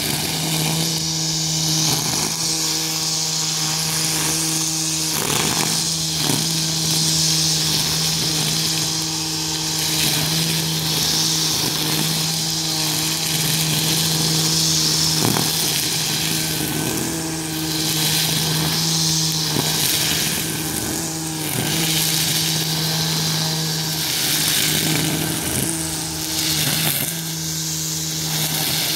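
Husqvarna 535iFR battery-powered string trimmer running at steady speed, a constant electric hum under the swishing hiss of its spinning line cutting through tall grass. The hiss swells and fades as the head sweeps through the grass, with a few short knocks where the line strikes thicker clumps.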